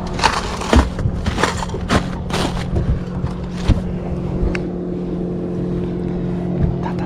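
Boat motor running with a steady hum. Several short rushing bursts come over it in the first three seconds.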